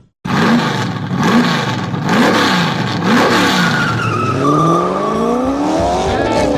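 Car engine revved up and down in several quick blips, then accelerating with a long rising pitch.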